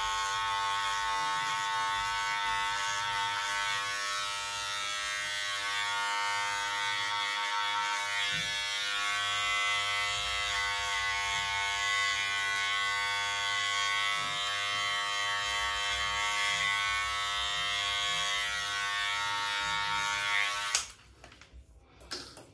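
Wahl Senior hair clipper fitted with a 6 mm guard, running with a steady buzz while it roughs down the bulk of the beard on the side of the face. It stops abruptly near the end.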